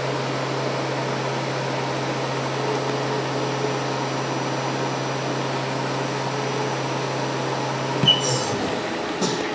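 Haas VF2-SS vertical machining center's spindle running steadily at 8,000 rpm, a constant hum with a whirring hiss. Near the end there is a click and the hum stops.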